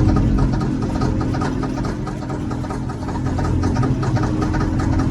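Old Steiger four-wheel-drive tractor's diesel engine turning over and running rough, with a regular pulsing beat, as it struggles through a cold start. The owner takes it for a smoker that needs new injectors.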